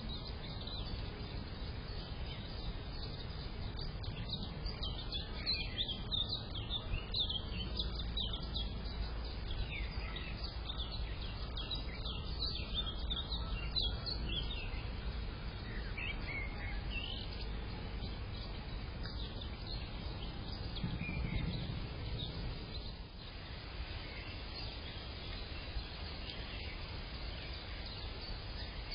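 Garden birds chirping and calling, with many short high chirps close together in the first half and fewer, scattered ones later, over a steady low background rumble.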